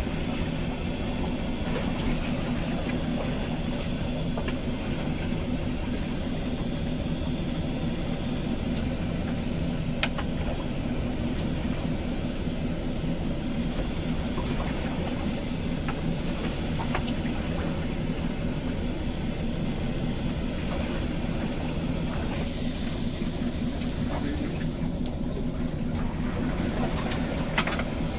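Steady low drone of a fishing boat's engine running, with hiss over it. A couple of sharp clicks stand out, one about ten seconds in and one near the end.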